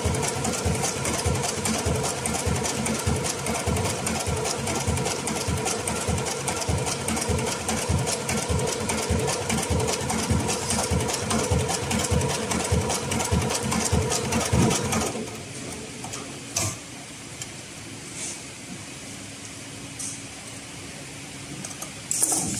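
HighTex 204-370PRO heavy-thread decorative-stitch sewing machine running steadily, sewing a thick decorative seam through folded upholstery material with a rapid, even run of needle strokes. It stops about two-thirds of the way in, and a couple of sharp clicks follow.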